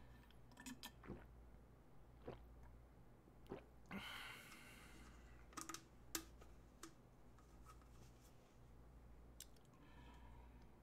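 Near silence over a low steady hum, broken by faint clicks and small gulping and bottle-handling noises as a person drinks from a plastic bottle, with one short breathy rush of air about four seconds in.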